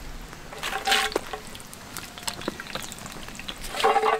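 Cashew nuts sizzling and crackling as they drop into hot oil in a large wok, with sharp crackles throughout and a louder burst about a second in. A spatula stirs them through the oil.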